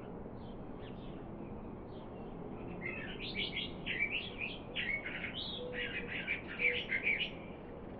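Songbird singing a quick, varied warbling phrase about three seconds in that lasts around four seconds, after a few faint scattered chirps, over a steady low outdoor background noise.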